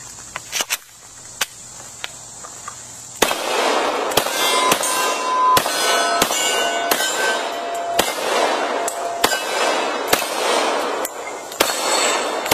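A string of pistol shots from a Glock 21 Gen 4 firing .45 ACP 230-grain factory rounds, starting about three seconds in and coming roughly once a second. Steel targets ring after some of the hits.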